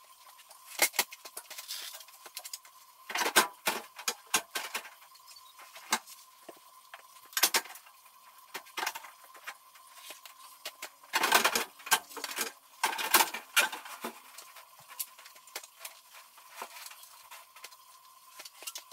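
Irregular metallic clanks, clinks and knocks of hand tools and parts being handled on a tractor, busiest about three to four seconds in, near seven and a half seconds, and again around eleven to thirteen seconds, over a faint steady high hum.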